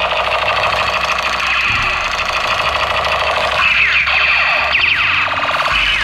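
Battery-powered light-and-sound toy gun playing electronic sound effects: a steady siren-like warble, then a rapid run of falling laser sweeps.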